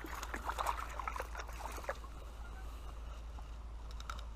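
Creek water splashing with many small clicks and knocks for about two seconds, then settling into the steady trickle of the stream.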